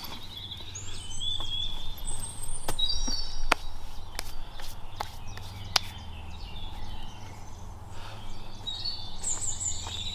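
Woodland birds chirping, in short calls near the start and again near the end, with scattered sharp crackles of dry leaves and twigs on the forest floor under a person's hands, knees or feet.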